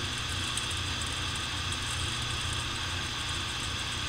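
Steady low hum with an even hiss over it: constant room background noise.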